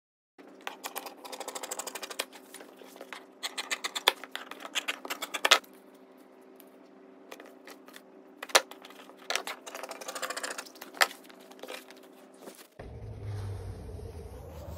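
Hands handling and flapping stiff striped fabric pieces on a workbench, in bursts of quick rustling and clicking over a steady hum. About two seconds before the end it switches abruptly to a low rumble with a rising whine.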